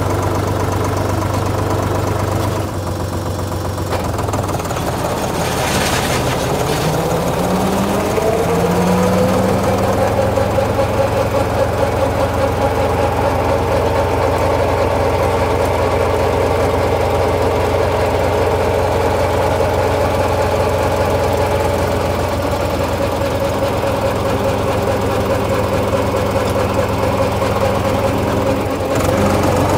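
International Harvester tractor's diesel engine running with a drum mower hitched behind. About six seconds in, the sound climbs in a rising whine, then engine and mower run steadily at the higher speed.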